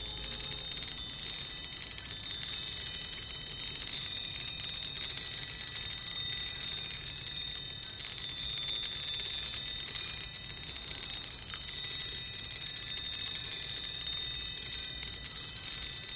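Electrostatic brass-rod chimes: copper-coated bead pendulums, driven back and forth by a centre rod charged to 5,000 volts, keep tapping a cluster of small solid brass rods. This gives a steady, rapid, high-pitched tinkling of many overlapping rings.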